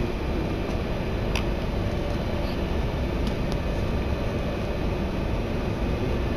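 Inside a Z20900 RER commuter train running through a tunnel: steady rumble of the wheels and running gear, with a few light clicks.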